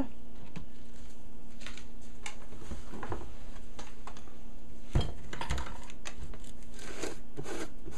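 Scattered light clicks and taps, with one sharper knock about five seconds in, over a steady low hum.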